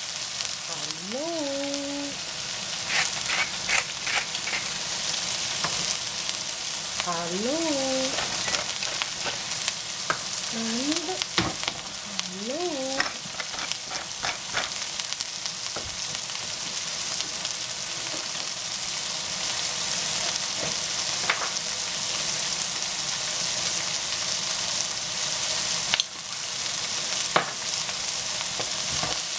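Shredded cabbage and sliced meat sizzling steadily in an oiled frying pan as they are stir-fried, with scattered scrapes and taps of a wooden spatula against the pan.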